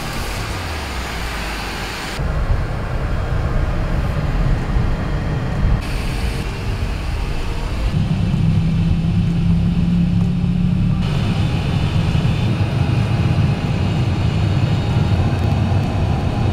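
Private jet cabin noise in flight: a steady low rumble with airflow hiss. The rumble changes abruptly a few times where clips are cut together.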